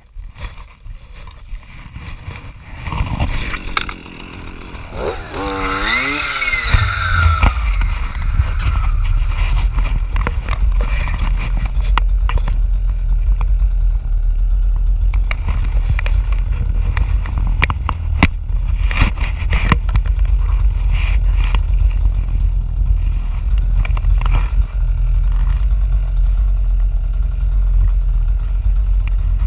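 Jonsered FC 2256 W two-stroke clearing saw with a circular blade: the engine revs up sharply about six seconds in, then runs steadily with scattered clicks and knocks.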